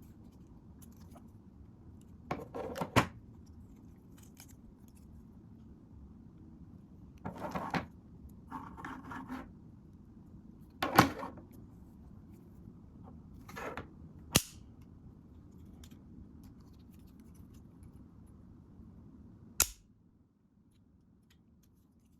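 Hands unboxing a Ulanzi GP-16 magnetic mount: short rustles of packaging and small parts being handled, with about six sharp clicks or knocks spread through.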